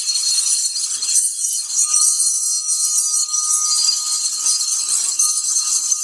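Fein Multimaster oscillating multi-tool with an aftermarket blade cutting through galvanized steel strut channel: a steady, high-pitched metallic rasp of the blade teeth on the steel.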